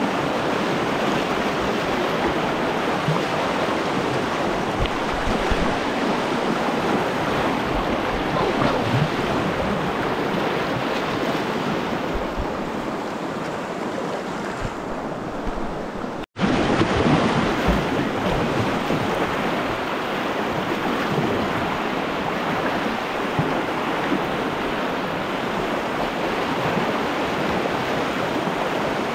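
Rushing whitewater of a river rapid, heard from a kayak in the current, as a steady loud wash of water noise. About two-thirds of the way through it cuts out to silence for a split second, then carries on slightly louder.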